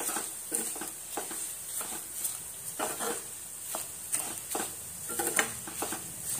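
Steel spoon stirring and scraping wilted spinach and gongura leaves around a pan, a scrape every half second to a second, over a steady sizzle of the leaves frying in oil.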